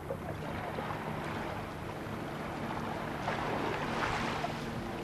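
Seashore ambience: small waves washing against the rocks and wind on the camcorder microphone, over a steady low hum. The wash swells about three seconds in.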